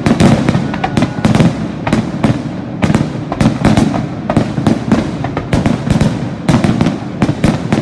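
Rapid barrage of aerial firework shells bursting overhead: sharp bangs about three a second, overlapping into a continuous low rumble.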